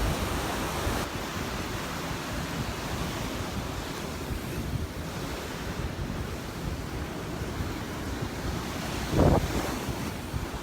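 Wind buffeting the microphone over the steady wash of surf breaking on the beach, with a short louder burst about nine seconds in.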